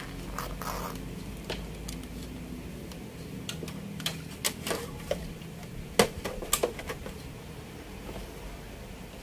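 Scattered clicks and knocks of a handheld digital multimeter and its test probes being handled and set down on the home theatre unit's chassis. The loudest knock comes about six seconds in, within a cluster of clicks between about four and seven seconds.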